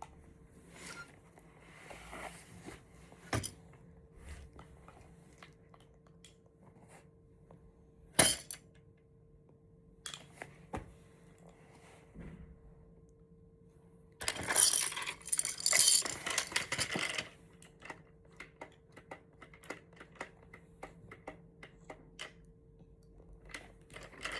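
Spoon clinking and scraping against a dish: scattered taps, with a dense run of clatter about two-thirds of the way through.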